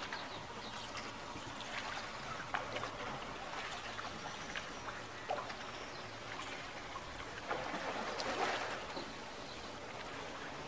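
Canal water lapping and splashing against the hull of a gondola, with small irregular splashes and a louder swell of splashing about eight seconds in.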